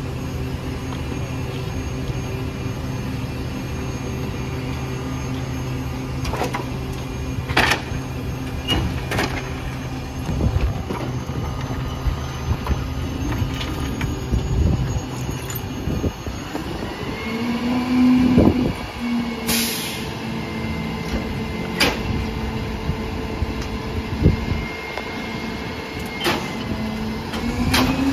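Diesel Pak-Mor rear-loader garbage truck idling steadily, with scattered clanks and knocks of metal and debris. About halfway through, the engine revs rise and fall as the hydraulic packer blade cycles through the hopper, with a whining hum that swells twice.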